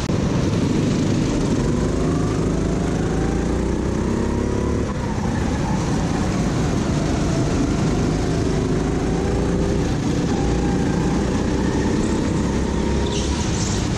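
Go-kart engine running close by, its pitch rising over a few seconds, dropping, and rising again as the kart accelerates and slows through the corners.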